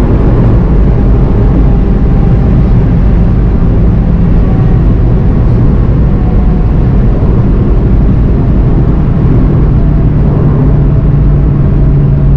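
Inside the cabin, a VW Golf 7 GTI TCR's turbocharged four-cylinder engine runs steadily at high speed under heavy road and wind noise, and the car eases off as it slows from about 180 to 145 km/h.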